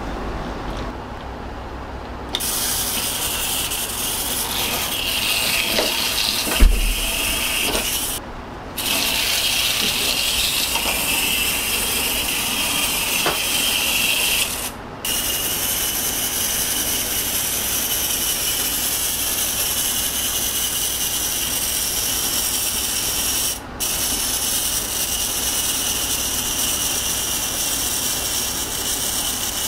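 Clockwork motor of a Capsule Plarail wind-up Thomas toy train whirring steadily with a high, hissy buzz. It breaks off briefly three times, and there is a single knock about a quarter of the way in.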